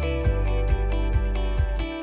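Background instrumental music with plucked guitar over a steady beat.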